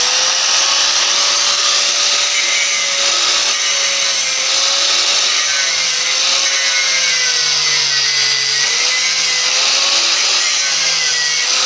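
Electric angle grinder running at full speed just after switch-on, its cutting disc grinding through a thin iron strip. The motor whine wavers and sags at times as the disc is pressed into the metal.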